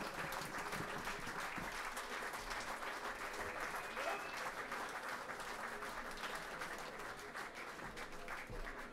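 Concert audience applauding, a dense, steady patter of many hands clapping with a voice or two calling out, growing slightly quieter toward the end.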